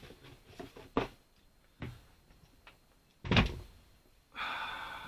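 Knocks and thuds from sneakers and their cardboard shoebox being handled: a couple of light knocks, then a louder thud a little over three seconds in. Near the end comes a brief steady tone.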